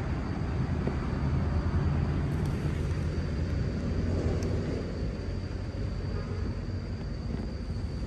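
Steady rumble of a motorbike ride, engine and wind noise mixed together with a faint steady whine above, muffled by clothing over the phone's microphone.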